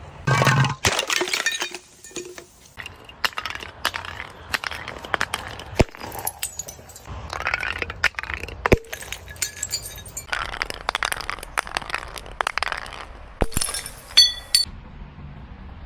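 Glass being broken and crushed: repeated cracks and crunching of shards, with many sharp clicks. A short ringing clink of glass comes near the end.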